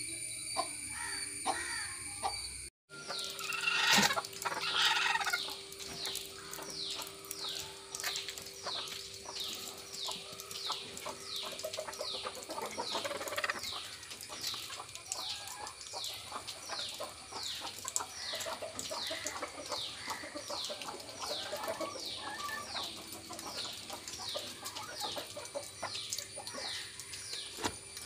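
Domestic hens clucking, with a louder call about four seconds in. Behind them a short falling chirp repeats steadily, about one and a half times a second.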